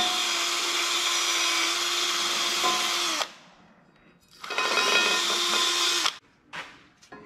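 Cordless drill running against a steel brake caliper bracket, a steady whine with a scrubbing hiss: one run of about three seconds, a second's pause, a second run of under two seconds, then a brief blip.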